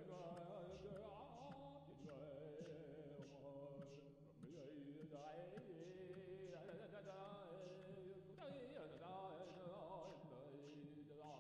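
Faint background music with a steady light beat of about two ticks a second under a wavering melodic line.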